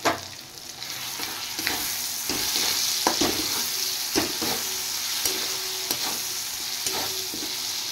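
Onion-tomato masala with ground spices sizzling in hot oil in a kadai as a spatula stirs and scrapes the pan, with a scrape or knock every second or so. The sizzle swells about a second in; the masala is frying until the spices are cooked.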